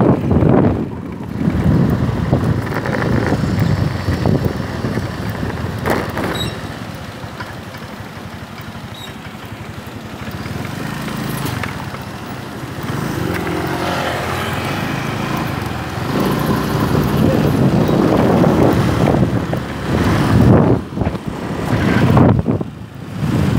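Ride noise from a moving scooter: its small engine running under wind rushing over the microphone. The noise dips for a few seconds midway, then grows louder again.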